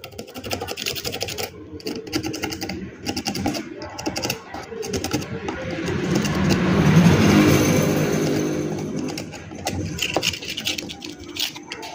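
Rapid scratching and scrubbing on a circuit board as it is cleaned of stray solder. In the middle, the sound of a passing motor vehicle swells and fades.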